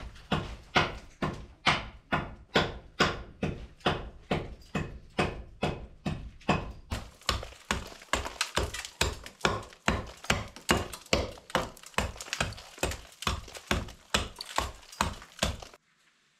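A pointed hammer chipping hard old mortar out of the joints of a stone wall, in a steady run of sharp strikes about three a second. The strikes come a little quicker after the middle and stop shortly before the end.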